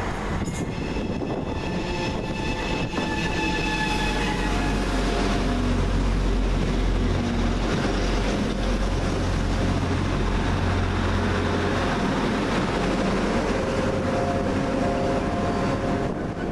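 Transport for Wales Class 175 diesel multiple unit arriving and drawing along the platform, its diesel engines giving a steady low drone. There are high whining tones in the first few seconds, and a mid-pitched tone steps downward as the train slows.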